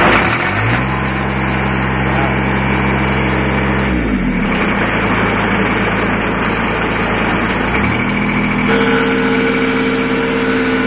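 Kubota D722 three-cylinder water-cooled diesel on a riding mower, just cold-started after six months idle, running steadily; its speed drops about four seconds in and picks up again near eight seconds. Shortly after, a steady extra tone joins the engine note, which the owner traces to a board that has fallen in against the engine.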